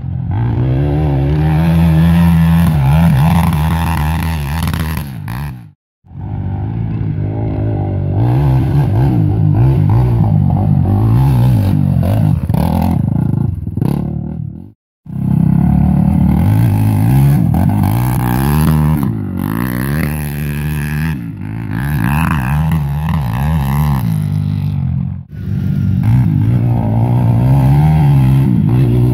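Sport quad ATV engines revving up and down as they accelerate along a dirt track. The sound cuts off abruptly three times between clips.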